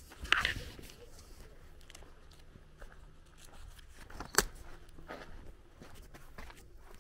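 Footsteps crunching on a dirt lane, with a loud sharp noise just after the start and a short sharp click about four and a half seconds in.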